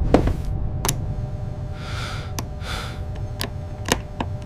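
Two short breathy huffs of effort over a steady low hum, with a few sharp clicks scattered through, the loudest just after the start and near the end.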